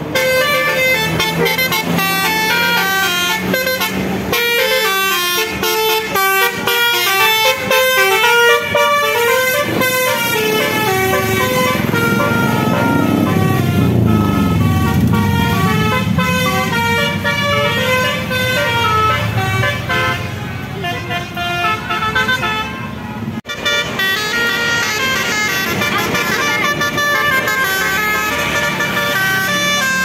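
Tour bus telolet horns playing multi-tone tunes, the notes stepping up and down one after another without a break, with a stretch of sliding pitch in the middle.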